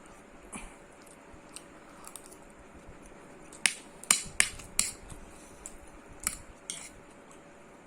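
Close-miked eating: a quiet stretch over a faint steady hum, then a cluster of about eight sharp clicks and smacks from about halfway through.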